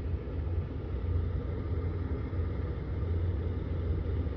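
An engine idling: a steady low rumble that does not change.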